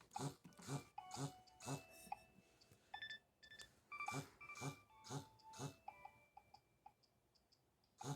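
Nokia mobile phone ringing quietly: a simple melody of steady electronic beeps, while its vibration motor buzzes in pulses about two a second, in groups of four with short pauses between.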